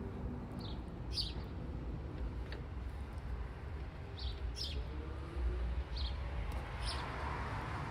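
A small bird chirping, short high chirps about seven times at uneven intervals, over a steady low background rumble.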